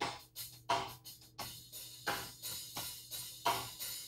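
Sampled drums from the BFD3 software drum instrument: a run of drum and cymbal hits, several a second, each dying away quickly.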